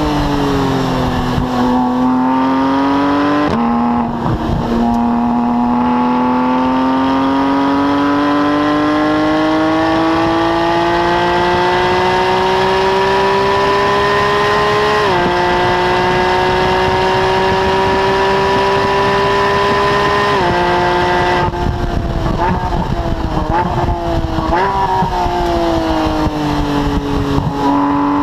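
Porsche 991 GT3's naturally aspirated flat-six exhaust under hard acceleration on track, heard right at the tailpipes. The pitch climbs steadily through long pulls, with three quick upshifts where it drops sharply. Near the end it falls and flickers under braking with blipped downshifts.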